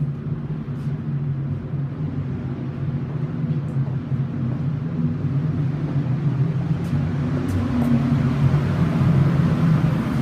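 Steady low machine hum, growing a little louder toward the end, with a few faint clicks.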